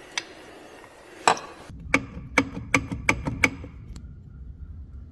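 Connecting rod of a stripped Polaris 700 twin engine rocked by hand on its crankshaft journal, clicking about six times in quick succession: play in the rod's big end, the source of the engine's knock.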